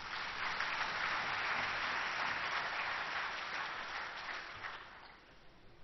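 Audience applauding, many hands clapping in a steady patter that dies away near the end.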